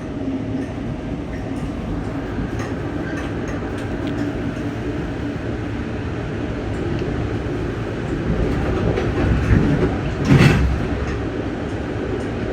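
Rolling noise heard from inside a moving Amtrak passenger car: a steady rumble of wheels on rails with scattered faint clicks and one brief louder swell about ten seconds in.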